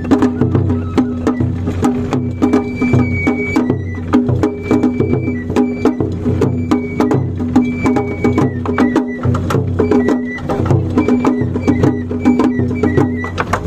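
Japanese festival hayashi from a festival float: a large taiko drum beaten in a quick steady rhythm with sticks, with sharp wooden clicks among the drum strokes and a high melody of short piped notes over the top.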